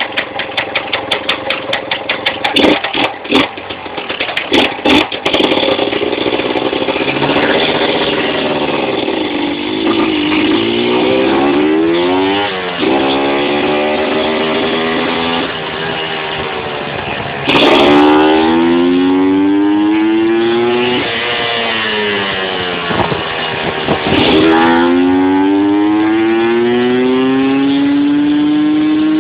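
Yamaha TZM 150 cc two-stroke single engine at full throttle, accelerating up through the gears. For the first few seconds it runs in uneven, sharp pulses. After that the revs climb steadily in each gear and drop suddenly at each shift, four or five times.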